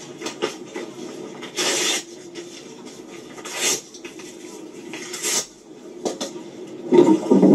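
A sheet of card-paper torn up by hand in three short rips, each a brief burst of tearing, over a low background hum. A louder sound comes in near the end.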